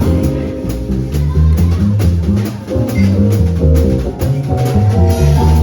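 Jazz quartet of drum kit, saxophone, piano and bass playing live. Regular cymbal and drum strokes ride over a moving bass line and held higher notes.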